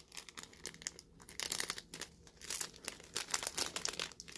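Thin clear plastic bag crinkling in the hands as blue and white feathers are handled inside it, a run of irregular sharp crackles.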